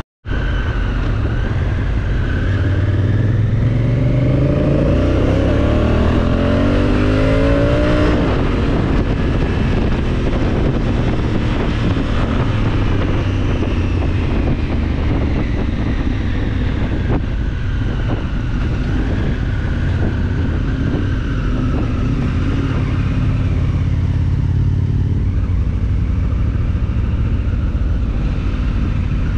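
Honda Africa Twin CRF1000's parallel-twin engine under way, rising in pitch as the bike accelerates a few seconds in, then running steadily.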